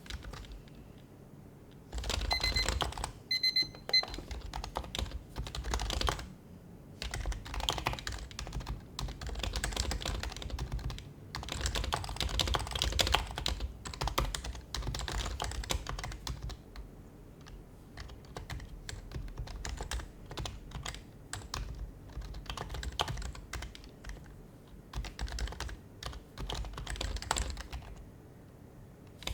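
Typing on an HHKB Professional HYBRID Type-S keyboard, its silenced Topre capacitive keys clicking in bursts of fast keystrokes with short pauses between them, starting about two seconds in.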